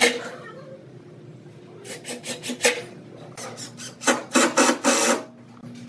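Makita cordless driver running screws into pine, in rapid clattering bursts: a short burst about two seconds in and a longer, louder one about four seconds in as a screw is driven home.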